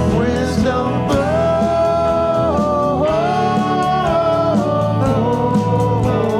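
Rock band playing a song: a lead vocal holding long, sliding notes over guitar and bass, with a steady drum beat.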